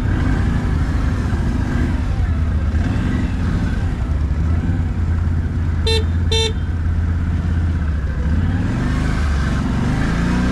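ATV engine running steadily, with a horn giving two short toots about six seconds in. Near the end the engine note starts to rise and fall.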